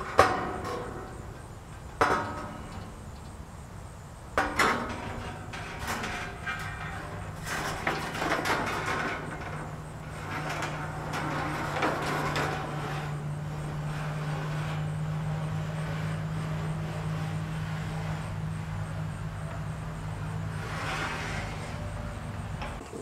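Corrugated sheet-metal roofing panel knocking and rattling against a steel scaffold as it is hauled up, with three sharp knocks in the first few seconds. A steady low hum runs under it from a few seconds in until near the end.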